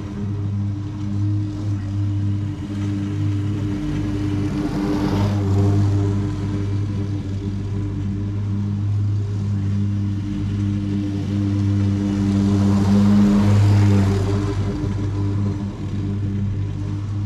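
Lawn mower engine running at a steady speed while mowing, with the cutting noise swelling twice, about five seconds in and again around thirteen seconds.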